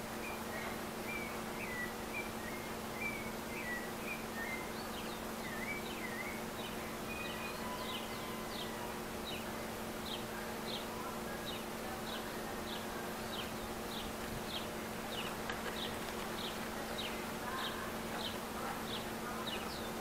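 A steady low hum under small birds calling: a few high chirps at first, then from about seven seconds in a rapid run of short, high, falling notes, about two a second.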